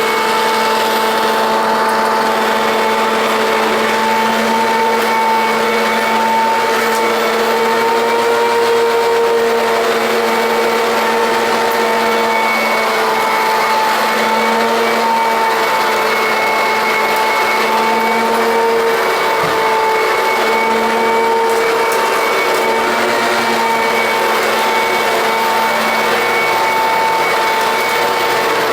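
Perfect P101 commercial upright vacuum cleaner running, its motor giving a steady, loud whine over a rush of air that holds the same pitch throughout.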